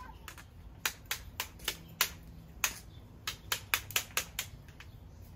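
A series of light, sharp clicks, a dozen or so in irregular succession, stopping about a second before the end.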